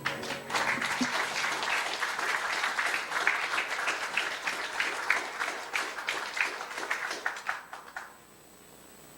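Congregation applauding at the end of a song, many hands clapping at once for about eight seconds, then dying away.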